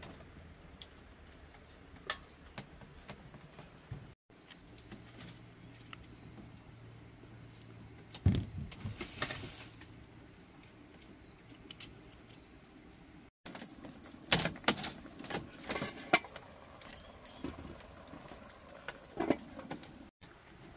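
Scattered light knocks, clicks and scrapes of hands handling things, with a louder knock about eight seconds in.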